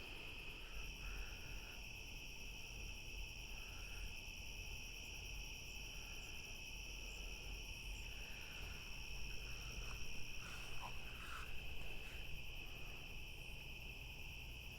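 Insects trilling steadily and continuously outdoors at a high pitch, with a second, higher trill joining about a second in.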